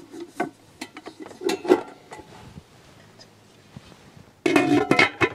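Glass cookware knocking together as a glass lid is set onto a glass-bowl heat trap: a few light clinks, then a louder clatter of glass on glass lasting under a second near the end.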